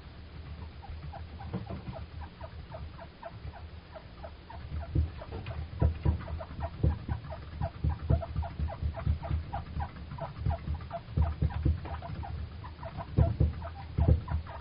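Pet chinchilla running on its exercise wheel, with a steady run of short knocks and clicks, several a second, that grow louder about five seconds in. This is the peculiar 'ttuk-ttuk' knocking it makes whenever it turns the wheel.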